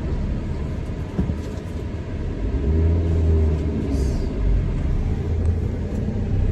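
Low, steady rumble of a moving vehicle, growing louder about two and a half seconds in.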